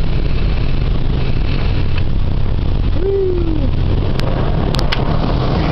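Automatic car wash heard from inside the car's cabin: a steady, loud wash of soapy water spraying over the windshield over a low machinery rumble, with a brief falling tone about halfway and a few sharp clicks near the end.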